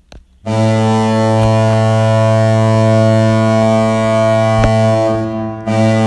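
Seattle Kraken goal horn played back from a goal-horn app: a low, steady horn blast that starts about half a second in and holds for nearly five seconds, then a second blast starting near the end.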